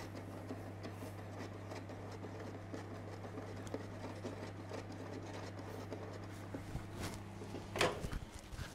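Induction hob humming steadily under a stainless-steel saucepan of cream heating at full power, with faint scraping as the cream is stirred. The hum stops near the end, around a couple of sharp knocks.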